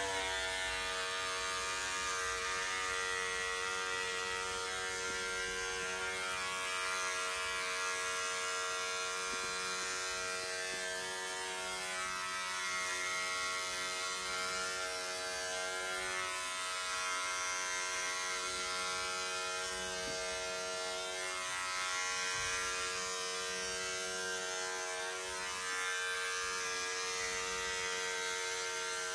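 Electric shaver running steadily as it is drawn over a buzzed scalp: one unbroken, even-pitched hum.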